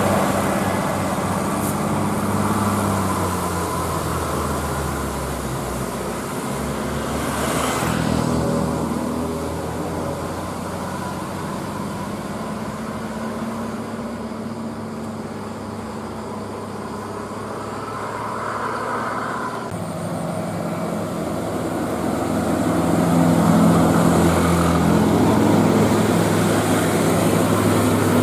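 Bus engines running on the road with traffic noise, a brief hiss about eight seconds in.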